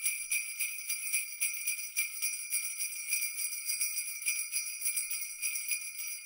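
Jingle bells shaken in a steady, fast rhythm, about five shakes a second, with a bright, high ringing.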